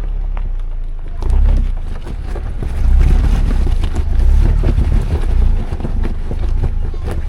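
Ford Bronco's engine working at low speed as it crawls over a rocky off-road trail, a deep rumble that swells and eases, with scattered knocks and wind on the microphone.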